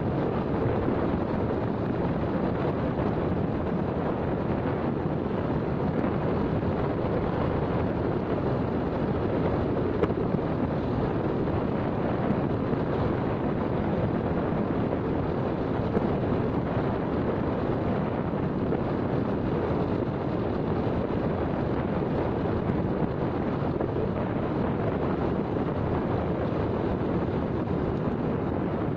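Steady wind rush on the microphone of a moving motorcycle, with the engine and road noise underneath.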